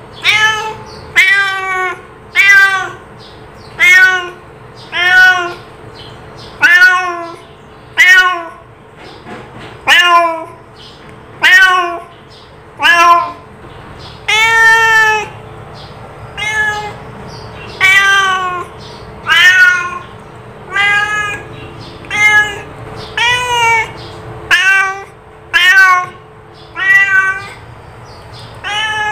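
Domestic cat meowing over and over, short meows about once a second.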